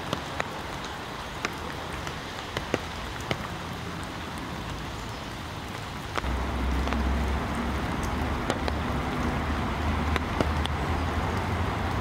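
Steady rain hiss with scattered sharp ticks of single drops. A low rumble comes in about six seconds in and stays.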